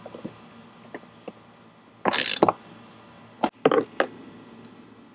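Hand ratchet with a 13 mm socket loosening a bolt, clicking in short bursts: a few scattered clicks, a louder run of ratcheting about two seconds in, and another short run about a second and a half later.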